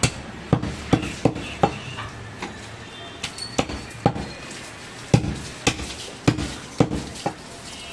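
Butcher's cleaver chopping goat meat on a wooden log chopping block: a series of sharp chops, irregularly spaced, about a dozen in eight seconds.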